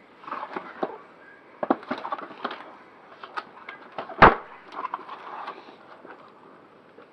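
Cardboard box and packaging being handled and opened: scattered rustles, scrapes and small clicks, with one sharp knock about four seconds in that is the loudest sound.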